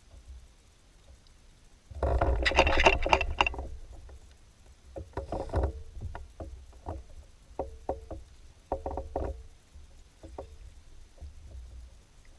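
Knocks and clatter on a plastic kayak's hollow hull: a loud, dense burst about two seconds in, then scattered single knocks and short clusters.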